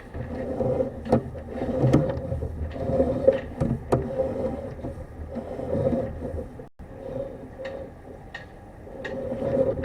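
Sewer inspection camera's push cable being worked through the drain line: scraping and rubbing that swells and fades, with several sharp clicks and knocks.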